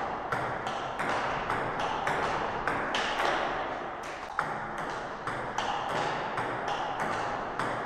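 Table tennis rally: the plastic ball clicking off the rackets and bouncing on the table in a steady rhythm of about three hits a second.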